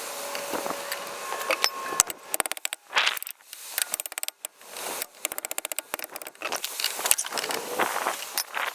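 Metal hand tools clanking and clicking on a car's tie rod as a rusted fitting is worked loose. There are scattered sharp knocks and three short runs of rapid clicks, about two and a half, three and a half and five seconds in.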